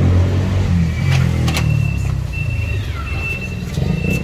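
Low steady rumble of a vehicle engine running, with a high electronic beep repeating about every 0.7 seconds from about halfway in, and a few sharp clicks.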